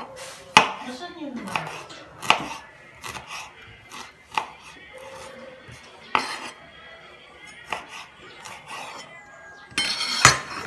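Chef's knife slicing ginger on a cutting board: irregular sharp knocks of the blade hitting the board, with scraping as the cut pieces are pushed together, loudest about ten seconds in.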